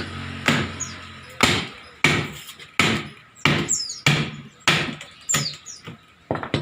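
Hammer blows on a nailed shipping crate being knocked open, about ten sharp strikes at a steady pace of roughly one and a half a second.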